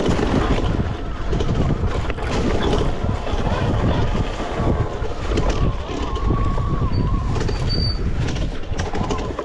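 Wind rumbling on the microphone during an off-road ride on an Arctic Leopard electric e-bike, with the constant jolts and rattles of rough ground.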